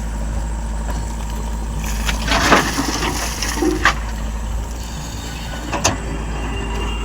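Heavy vehicle engine running steadily with a low rumble, a short rattle about two and a half seconds in, and two sharp knocks, near four and six seconds.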